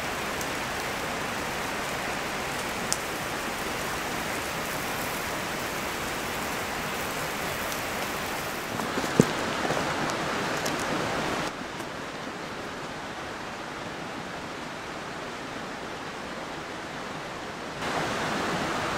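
Steady rushing of a mountain stream over rocks, dropping quieter about two-thirds of the way through and coming back up near the end. A single sharp click about nine seconds in.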